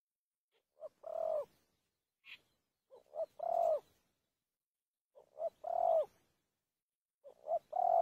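Spotted dove cooing: four two-note phrases about two seconds apart, each a short note followed by a longer, louder one that drops at its end. A brief faint higher chirp falls between the first two phrases.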